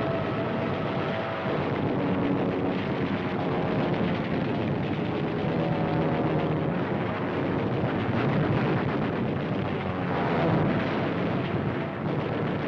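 Dense, continuous battle sound on an old narrow-band newsreel soundtrack: aircraft engines droning, mixed with gunfire and explosions.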